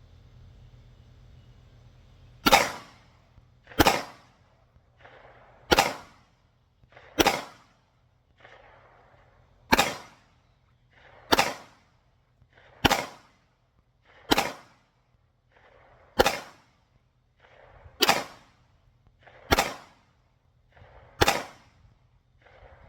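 Semi-automatic pistol fired twelve times in slow, steady single shots, about one every one and a half to two seconds, each shot sharp with a short ringing tail and fainter echoes between shots.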